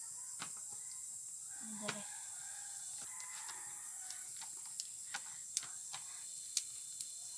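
Faint chicken calls a couple of times, with a few soft clicks from handling fern stalks over a steady background hiss.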